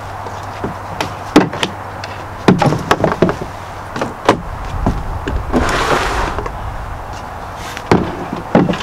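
A wooden canoe paddle and gear knocking and clunking against a canoe as they are set into it: a scatter of sharp knocks, a second-long rustling sound about six seconds in, then two more knocks near the end.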